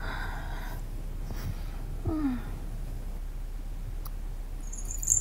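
A woman's breathy sighs and a short falling groan of nausea: she feels she has to vomit but can't. A brief high chirp sounds near the end.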